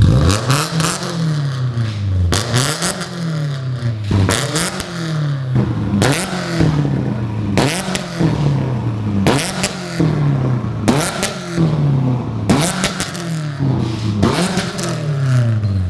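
Car engine revved over and over, its pitch climbing and dropping back roughly every second and a half to two seconds, with a sharp crackle at each rev.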